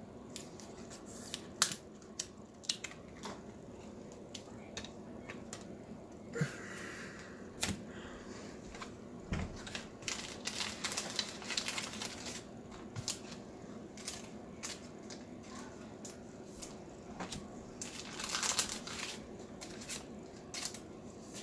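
Trading cards being slid into soft plastic penny sleeves and a rigid hard case: scattered crinkling of thin plastic and light taps and clicks of card stock.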